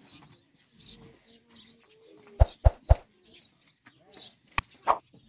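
Five sharp knocks: three in quick succession about two and a half seconds in, and two more near the end. Faint bird calls and low voices run underneath.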